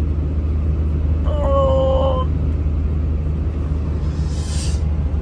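Steady low rumble of a Cummins 6.7-litre straight-six turbo-diesel pickup and its tyres, heard from inside the cab while cruising. A brief steady hum comes about a second and a half in, and a short hiss follows near the end.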